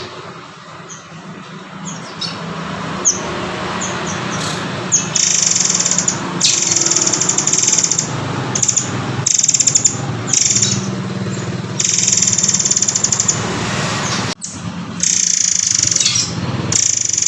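Murai air (murai kopi) calling in a series of high, rapid, rattling trills, some brief and some lasting a second or two, over a steady low background noise. It is played as a masteran recording for tutoring white-rumped shamas.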